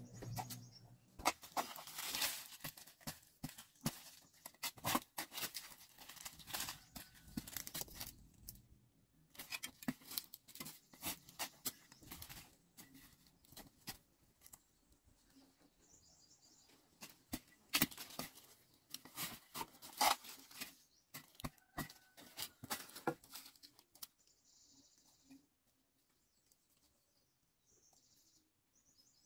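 Hoe blade chopping and scraping into dry soil, with clods breaking and crumbling as hands sift the dirt, in a run of short sharp strikes. The strikes die away about two-thirds through, leaving soft rustling and a few short high chirps near the end.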